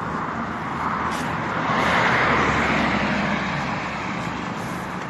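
A car passes by on the road: its tyre and engine noise swells to a peak about two seconds in, then fades away.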